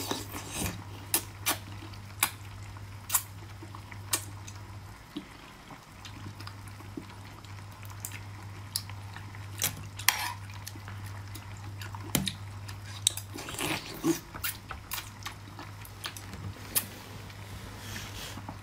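Eating mud snails: a metal spoon scrapes and clinks on the dish, with wet mouth clicks and slurps, irregular sharp clicks every second or so over a steady low hum.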